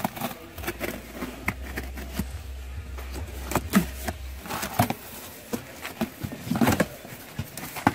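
A small knife slicing through packing tape and a cardboard box to open it, with irregular scrapes, ticks and clicks as the cardboard is cut and handled.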